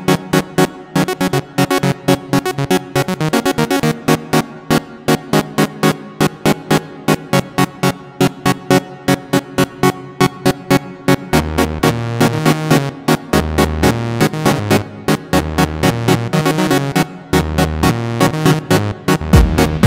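Electronic instrumental music: synthesizer and keyboard chords over a steady, fast ticking beat. A stepped synth bass line comes in about eleven seconds in.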